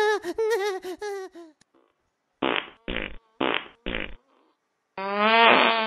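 Cartoon-like alien voice sound effects from the animatronic jury: a warbling, high-pitched voice that fades out in the first second and a half, four short clipped bursts, then a buzzing, wavering tone near the end.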